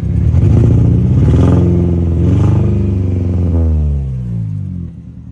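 2002 Mini Cooper S (R53) supercharged 1.6-litre four-cylinder engine running rough with a misfire in cylinder 2, revved up twice and falling back each time. The sound drops away sharply near the end.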